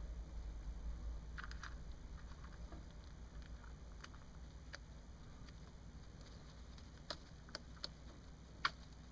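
Syrian hamster nibbling a snack: faint, scattered small crunches and clicks over a low steady rumble. Several sharper clicks come in the last few seconds, the loudest near the end.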